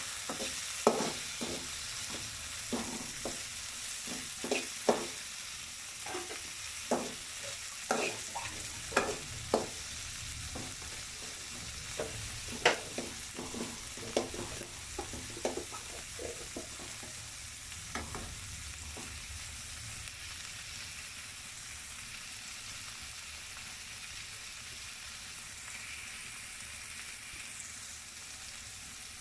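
Onion, tomato, garlic and green chillies sizzling in hot soybean oil in a kadai, stirred with a utensil that knocks and scrapes against the pan. The stirring knocks stop about two-thirds of the way through, leaving a steady sizzle.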